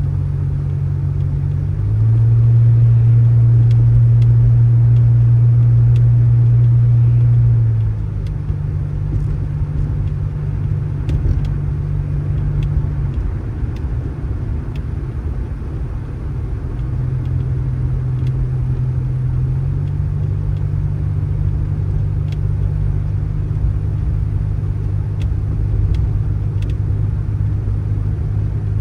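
Motor vehicle running with a steady low drone. It grows louder for several seconds about two seconds in, then drops back and shifts in pitch a few times.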